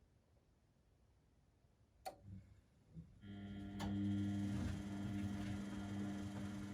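A click about two seconds in and a couple of soft knocks, then a laundry machine starts up just after three seconds and runs with a steady hum.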